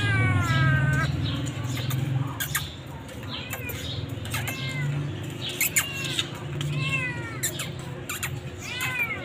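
Hungry stray kitten meowing over and over: one long falling meow at the start, then about five shorter meows every second or two. A few sharp clicks fall between the calls.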